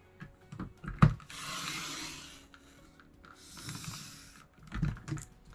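Sliding-blade paper trimmer cutting scrapbook paper: a few taps and a sharp click as the sheet is set, then two long scraping passes of the blade along the rail, and soft paper-handling thumps near the end.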